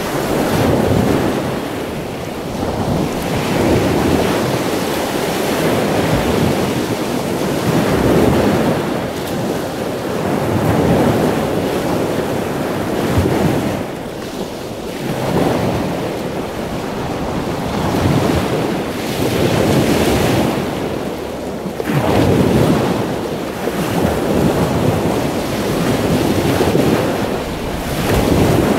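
Ocean surf washing steadily, the noise swelling and easing every few seconds as waves come in.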